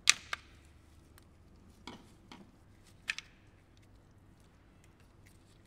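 Plastic connector bracket and solenoid connectors being worked off the valve body of a Hyundai/Kia six-speed automatic transmission, giving short, sharp clicks and clacks. A loud click comes at the very start with another just after, then a couple of lighter knocks about two seconds in and a sharp click about three seconds in.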